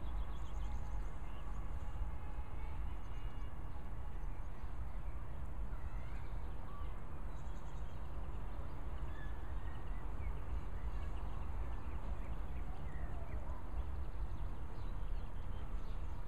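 Wind buffeting the microphone in a steady low rumble, with faint songbirds chirping now and then in the background.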